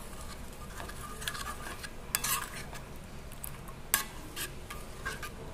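Steel spoon stirring jaggery into water in a stainless steel kadhai, scraping and clinking against the pan, with a sharp clink about four seconds in.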